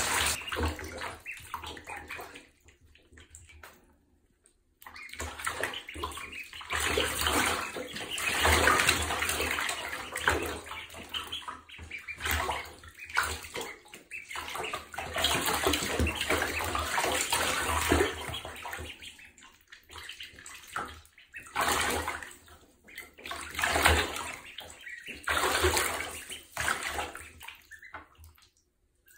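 Shallow water in a bathtub splashing and sloshing as ducklings paddle and scramble through it. It comes in irregular bursts with short lulls, and there is a near-silent pause a few seconds in.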